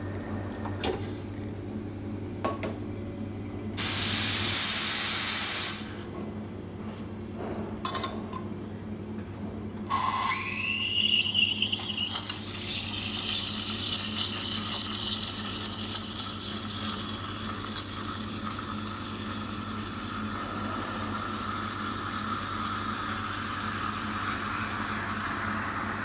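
La Cimbali espresso machine: its pump hums under the end of an espresso shot and stops, then the steam wand is purged in a two-second blast of hiss. About ten seconds in the wand steams milk in a stainless steel pitcher: a loud hiss with sputtering chirps as air is drawn into the milk, settling into a steady whistling tone as the milk spins.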